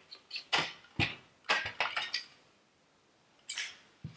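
Hard plastic tail-light parts (the chrome-plated Infiniti G37 housing and its clear plastic lens inserts) clicking and knocking against each other and the bench as they are handled. A quick run of sharp clicks and knocks through the first two seconds, then another about three and a half seconds in.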